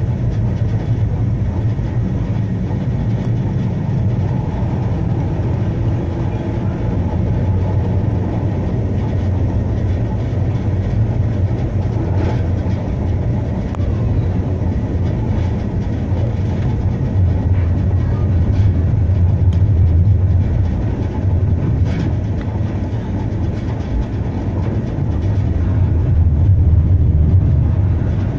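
Blackpool tram 715 running along its track, heard from inside at the front: a steady low rumble of the motors and the wheels on the rails. It grows louder about two-thirds of the way through and again near the end, with a few sharp clicks.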